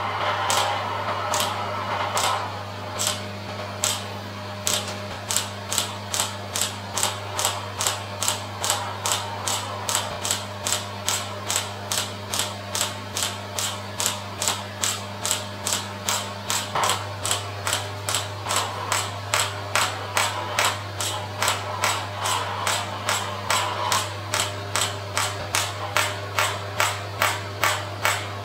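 Pneumatic (ballistic) shockwave therapy handpiece firing: a rapid, even train of sharp mechanical clicks, about three a second, as the projectile strikes the applicator head. A steady low hum runs underneath.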